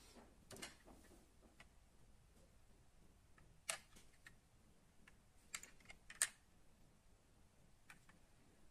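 A handful of small, sharp clicks and taps from a die-cast model car being handled in the fingers, scattered over otherwise near silence, the loudest a little before halfway and about two thirds of the way in.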